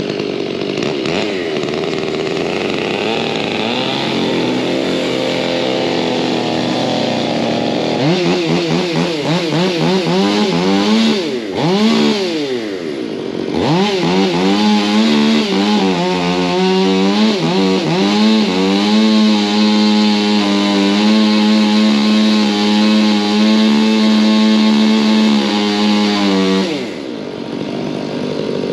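Two-stroke chainsaw running at high revs, the pitch swinging up and down in the first half. It then holds steady at full throttle for over ten seconds and drops back near the end.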